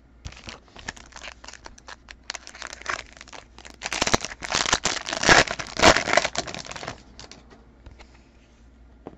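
2019 Bowman's Best card pack wrapper being torn open and crinkled, loudest in the middle few seconds. Faint scattered rustles and taps come before and after.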